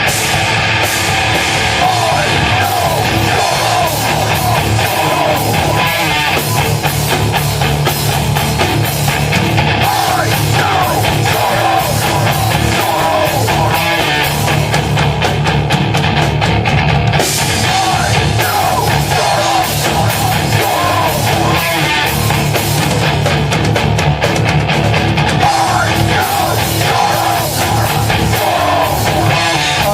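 Live heavy rock band playing loud: distorted electric guitars over a driving drum kit, with a steady beat and no breaks.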